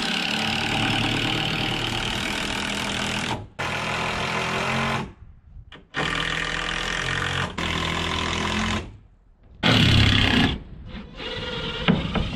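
Winch motor running in about five stop-start pulls of one to three seconds each, each starting and stopping abruptly, as it hauls a heavy window up.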